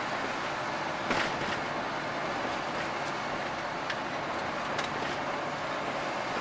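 Steady road and engine noise inside a moving truck cab, with a few short knocks, the loudest about a second in.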